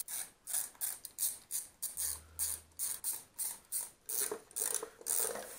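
Ratchet wrench clicking in quick, regular strokes, about three a second, as the bolts of a two-stroke dirt bike's left engine side cover are loosened.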